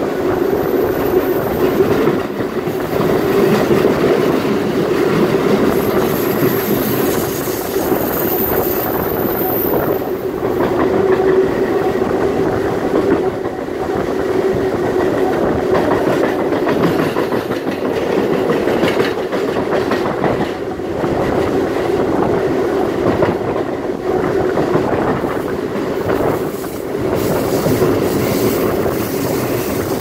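Series 900 electric multiple unit of the Belo Horizonte metro running along the line, with a steady rumble of wheels on rail and recurring rail clicks. A thin high squeal comes in between about six and ten seconds in.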